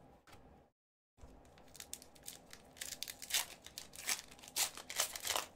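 Foil wrapper of an Upper Deck hockey card pack crinkling and tearing as it is pulled open by hand. It comes in a run of crackling bursts that starts about a second in and gets louder in the second half.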